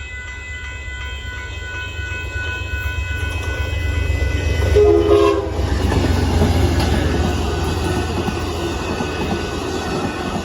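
Amtrak Texas Eagle passenger train coming through a grade crossing: a steady diesel locomotive rumble builds, a short horn blast sounds about five seconds in, then the loud rush and clatter of the wheels as the train goes by.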